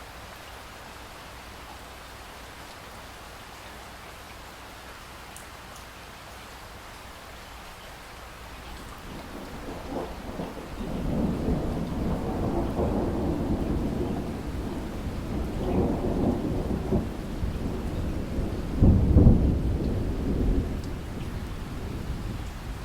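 Steady rain falling, then a long roll of thunder builds about nine seconds in. The thunder rumbles deeply in waves, is loudest a few seconds before the end, then eases off.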